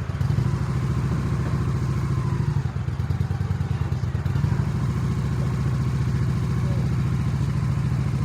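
Honda Shadow motorcycle's V-twin engine idling steadily, with a low, even beat.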